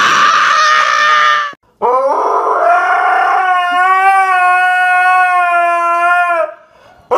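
A husky howls one long, steady note for about four and a half seconds, sliding up into it at the start and fading near the end. Before it comes a brief high-pitched squeal lasting about a second and a half.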